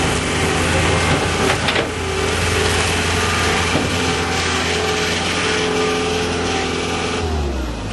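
John Deere 318D skid steer's turbo diesel engine running steadily, with a brief clatter about a second and a half in. Near the end the engine slows and its pitch drops.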